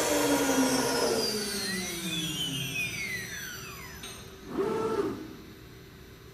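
Quintax QS30-505 CNC router spindle winding down, its whine falling steadily in pitch and fading over about four seconds, followed by a short burst of noise about four and a half seconds in.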